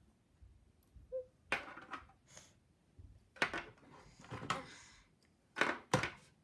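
About five sharp plastic clacks as small plastic dwarf figures are set down one by one on a wooden tabletop.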